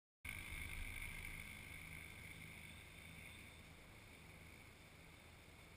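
Faint steady background noise, a low hum with a hiss, starting abruptly just after the start and easing off slightly over the first few seconds.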